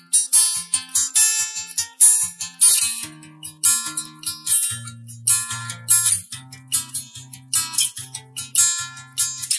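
Background music: guitar strumming chords in a steady rhythm over held low notes.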